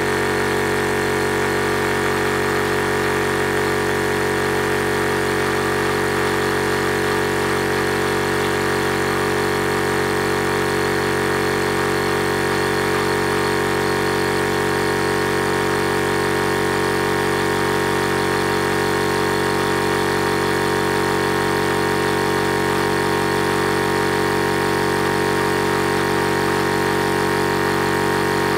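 Electric high-pressure PCP air compressor running steadily under load, mid-way through filling an air tank toward a 20 MPa (3,000 psi) target. A constant drone with several fixed tones, no change in speed.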